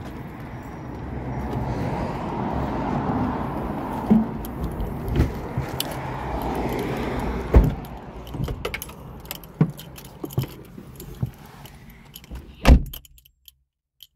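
A car door being opened and shut. A steady outdoor rumble gives way, about halfway through, to clicks and knocks from the door handle and the door, with a jingle like keys, as someone climbs in. Near the end the door shuts with a heavy thump, and the outside noise suddenly drops away inside the closed car.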